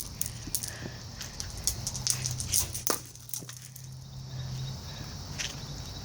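A dog scrambling after thrown rocks: scattered clicks and knocks of stones and paws on rocky ground.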